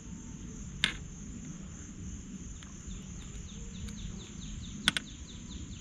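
Outdoor background of a steady high insect drone, with a run of quick falling chirps through the second half. Two sharp clicks stand out, one about a second in and a double one near the end.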